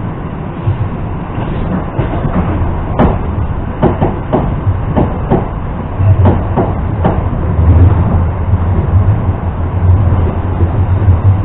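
Cabin noise of an ЭП2Д electric multiple unit in motion: a steady low rumble and hum, with a run of sharp, irregular clicks and knocks between about two and seven seconds in. The hum grows louder about six seconds in.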